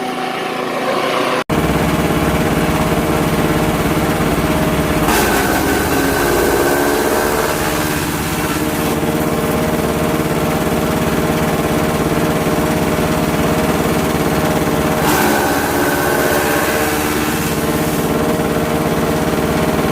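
Engine-driven grass chopper (forage cutter) running steadily. Twice a louder rushing noise rises over the engine for about two seconds.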